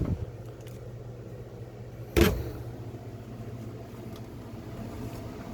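Attic exhaust fan's electric motor running with a steady hum, working hard against the heat. About two seconds in there is one short, loud sound.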